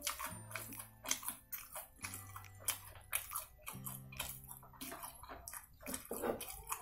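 Close-up eating sounds: wet chewing and smacking, with a metal spoon scraping and scooping rice off a paper-lined plate, many short irregular clicks. Background music with a slow bass line underneath.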